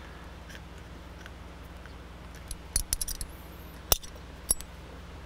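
Small metallic clicks and taps of an open-end wrench on the throttle cable adjuster's lock nut as it is snugged down. They come as a scatter of short clicks from about halfway through, the sharpest a little before the end, over a steady low hum.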